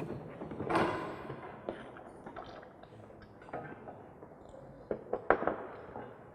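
Pipe fittings being handled during pipework assembly: a brief scrape about a second in, then a few sharp clicks and knocks about five seconds in.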